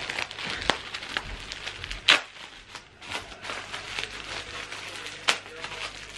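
Wrapping and tissue paper being handled and unwrapped, rustling and crinkling, with scattered sharp clicks and taps; the loudest is about two seconds in.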